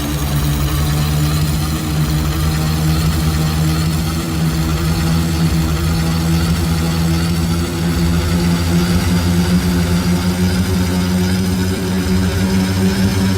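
An engine running steadily at idle, a continuous hum whose pitch edges up a little over the second half.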